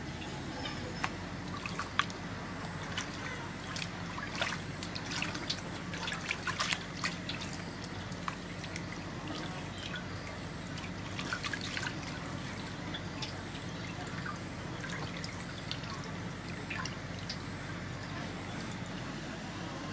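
Water dripping and splashing as a slab of raw pork belly is washed by hand in an aluminium basin, lifted out and rubbed, with water running off it back into the basin. The drips come in uneven flurries rather than a steady pour.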